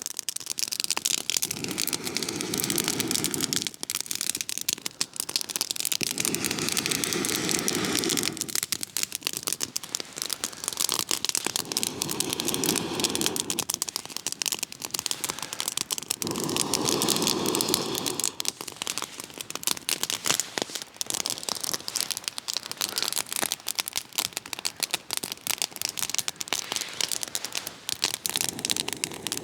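Cedar campfire crackling steadily. Four long blows through a collapsible bellows tube onto the flames come in the first twenty seconds, each a low breathy rush of about two seconds.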